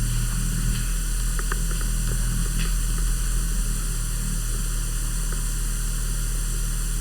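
Hunter Builder Plus ceiling fan running on low speed: a steady low hum under a constant hiss, with a few faint ticks.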